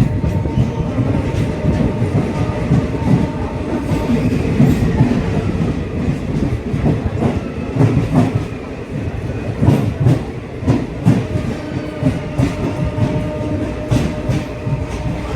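A moving train's wheels clattering over the rail joints, with a steady running rumble beneath repeated sharp knocks.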